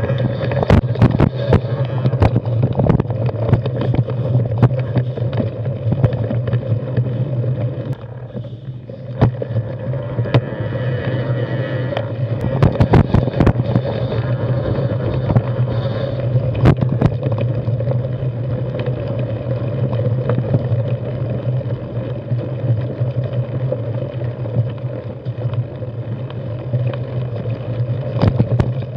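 Mountain bike with plus-size tyres rolling fast over a rocky trail: a steady rumbling rattle of tyres and bike, broken by frequent sharp knocks and clatters as it hits rocks. It eases off briefly about eight seconds in.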